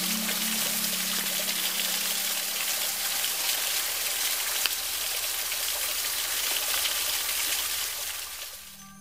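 Small waterfall on a mountain river: a steady rush and splash of falling water, with the tail of background music fading out in the first couple of seconds. The water sound fades down near the end.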